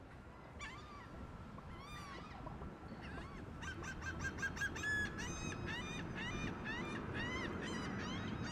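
A flock of birds giving many short, repeated calls, coming thick and fast from about halfway through. Beneath them is the low, slowly rising rumble of a Boeing 747-400's jet engines on approach.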